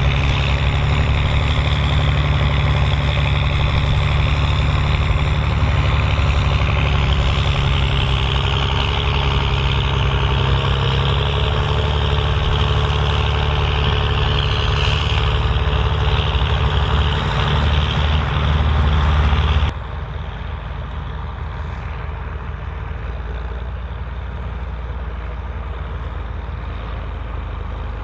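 Volvo BM 814 tractor's diesel engine working steadily under load while pulling a six-furrow plough. About two-thirds of the way through, the sound drops suddenly to a quieter, duller engine sound.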